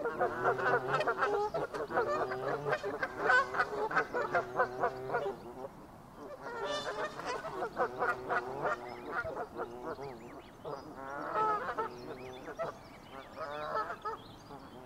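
Canada geese calling: rapid runs of short, repeated honks in bouts, with a brief lull about six seconds in.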